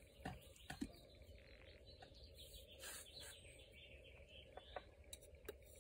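Near silence, with faint bird chirps in the background and a few soft taps.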